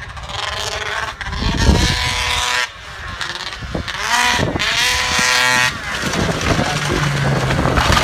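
Arctic Cat ZR440 snowmobile's two-stroke engine revving up twice, each run breaking off abruptly before it settles lower. The owner says its fuel pump is failing and the carbs still need tuning.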